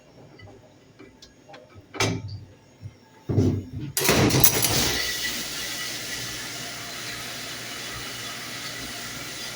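Commercial dishwasher: a couple of clunks, then about four seconds in the wash spray starts suddenly and runs on as a steady rush of water with a low hum.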